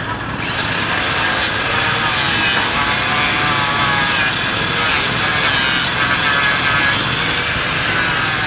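Motorcycle exhaust pipe being rubbed and polished to remove scratch marks: a steady, scratchy scraping with a wavering pitch that starts just after the beginning.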